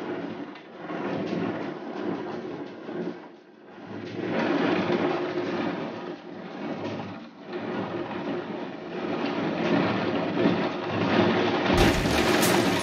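Heavy thunderstorm downpour with gusting wind, the rush of rain and wind rising and easing in surges. Near the end it cuts to a louder, fuller recording of the storm.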